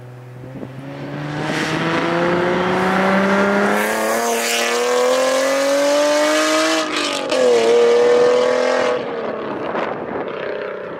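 Nissan 370Z Nismo's VQ37VHR V6 with a Tomei Expreme Ti titanium cat-back, Tomei Y-pipe and Invidia test pipes, accelerating hard away. The engine note rises steadily for about seven seconds, dips briefly with a shift and climbs again, then drops off as the driver lifts about nine seconds in.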